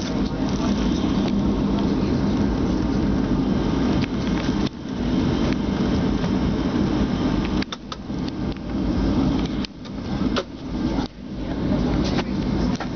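Jet airliner cabin noise while taxiing: a steady low engine hum and rumble heard from inside the cabin. In the second half there are a few brief knocks, and the level dips suddenly several times.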